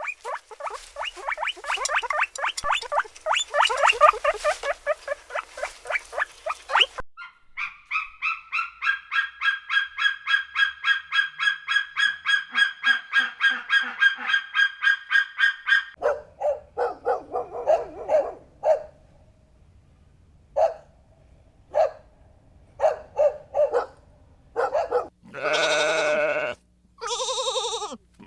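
Animal calls from several different animals in turn. The first half is fast, rapid pulsing calls. These are followed by short separate calls, and near the end by two longer wavering calls.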